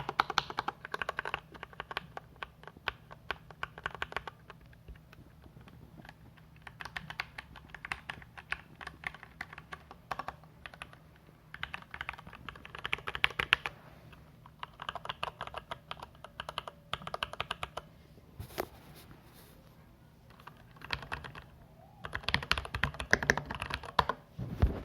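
Typing on a Varmilo VA108M mechanical keyboard with Cherry MX Speed Silver linear switches: rapid runs of key clicks in bursts of a few seconds, with short pauses between them.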